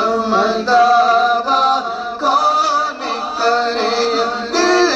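Male voices singing an Urdu naat into microphones, in long, wavering, drawn-out melodic lines.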